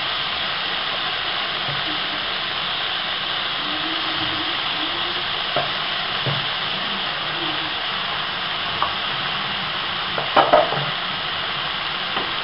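Gravy sizzling steadily on a hot sizzler plate of rice and noodles, a continuous spitting hiss. A few brief knocks sound about ten seconds in.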